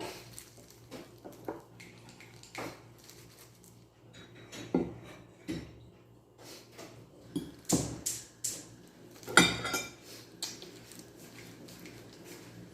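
Kitchen dishes and utensils clinking and clattering as they are handled, in a series of separate knocks with a few louder clanks about five, eight and nine and a half seconds in.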